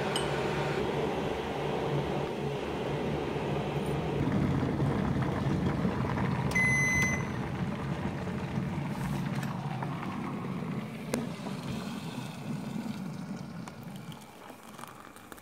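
Bosch electric kettle heating water with a steady rumble that builds, a short electronic beep about seven seconds in, then the rumble fading away. Near the end hot water is poured into a mug.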